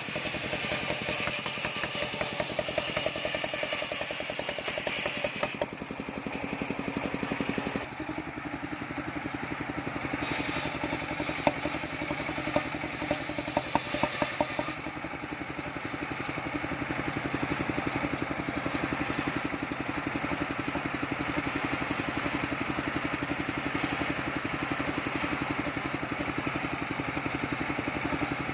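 Large engine-driven circular sawmill blade running, ripping waru wood planks during the first few seconds and again around the middle, with a few sharp knocks near the middle. The engine runs on steadily between cuts.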